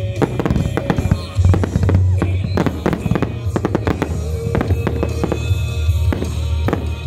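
Fireworks finale: a dense, continuous barrage of aerial shell bursts and crackle, many reports a second.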